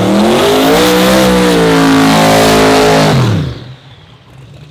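Twin-turbo 427 cubic inch LS-based V8 on methanol in a Holden VL Calais drag car, revved hard during a burnout with the rear tyres spinning. The revs climb, hold high for a couple of seconds, then fall away and stop about three and a half seconds in.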